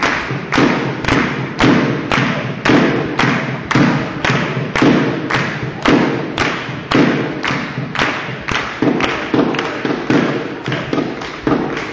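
Spectators in a sports hall beating out a steady rhythm, about two loud, sharp beats a second, each followed by a short echo.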